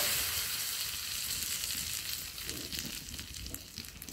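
A hot coconut-oil tempering of mustard seeds, fenugreek, dried red chillies and curry leaves sizzling as it hits kalan, a yogurt curry, in a clay pot. The sizzle is loudest at first and slowly dies away.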